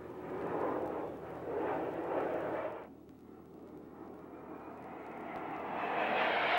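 Jet noise from a formation of A-4 Skyhawks passing overhead, cut off abruptly about three seconds in. Jet noise then builds steadily louder from another formation approaching, with a faint rising whine.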